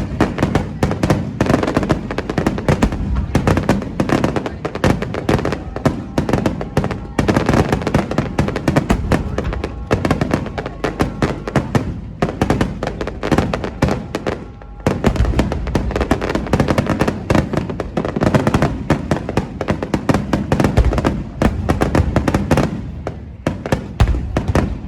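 Fireworks display: a dense, continuous barrage of shells bursting in rapid bangs and crackles, easing briefly about fifteen seconds in and thinning out near the end.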